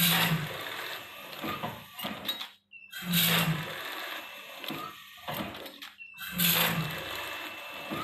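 Small automatic vertical sachet-packaging machine running through its cycles: a short motor hum with mechanical clacking of the film feed and sealing jaws at the start of each cycle, about every three seconds.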